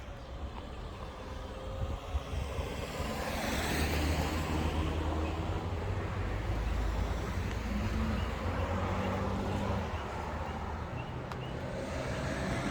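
Car engine and road noise, a steady low rumble that grows louder about three seconds in and then holds.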